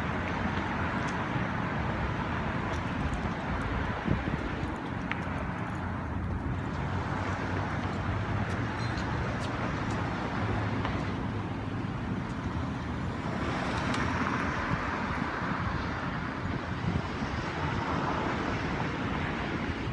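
City street traffic noise, a steady hum of cars that grows louder for a few seconds after the middle.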